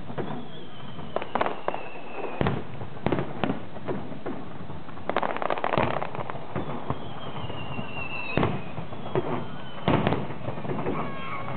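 Aerial fireworks bursting: a string of sharp bangs with a dense run of rapid crackling pops about halfway, and thin whistles falling in pitch twice.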